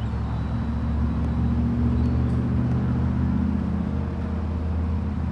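Car engine idling: a steady, low hum with a few held tones.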